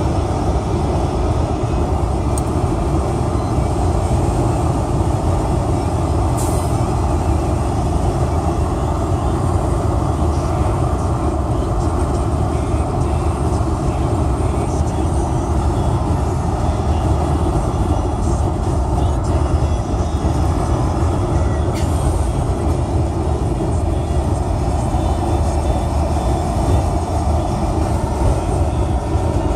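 Loud, steady low rumbling noise.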